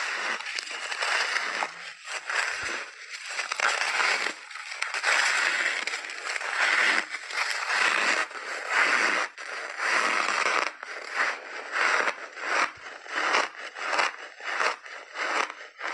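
Crunching of big chunks of refrozen crushed ice being bitten and chewed, a dense crackle that settles into quick, regular chews in the second half.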